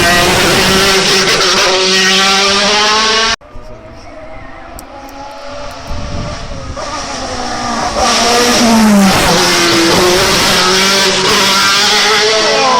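Hill-climb race car engine at high revs going past at full throttle; the sound cuts off sharply a little over three seconds in. Then a second race car engine rises as it comes up, passes loudly with a drop and climb in pitch at a gear change, and cuts off sharply near the end.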